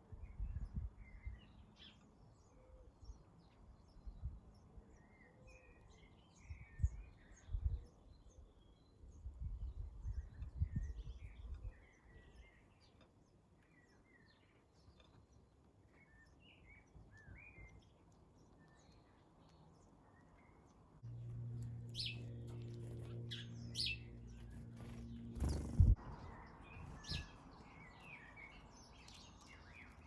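Small garden birds chirping in short, high calls. About twenty seconds in, a low steady hum starts and lasts about five seconds, with a few sharp clicks over it.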